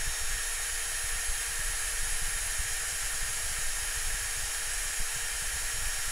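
Ingco 96 Nm 20V cordless impact drill running steadily with no load in first gear, its chuck spinning at about 470 RPM: an even motor whir with a thin, high-pitched whine.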